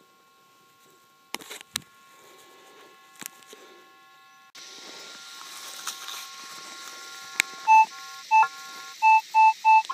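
Minelab CTX 3030 metal detector: two handling knocks and faint steady tones, then, near the end, five short mid-pitched beeps as the coil is swept over a target.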